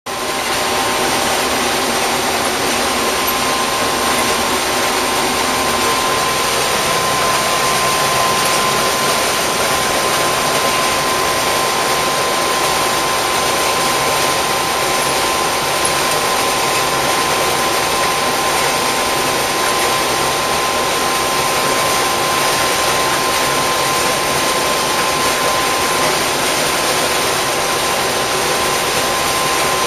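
International Harvester combine harvesting corn, heard from inside the cab: a steady, loud mechanical drone from the engine and threshing works, with a constant high whine over it.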